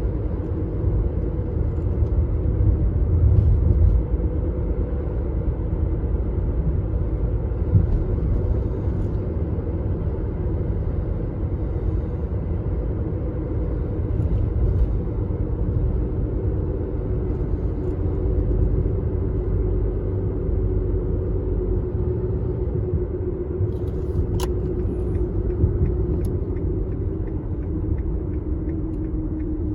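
Car driving: a steady low engine and road rumble with a droning hum that shifts slowly in pitch.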